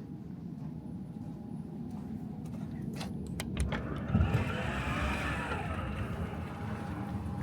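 Low rumble of a tram and its surroundings, with a few sharp clicks about three seconds in. About a second later a louder, hissing vehicle noise starts and carries on, with a faint falling tone in it.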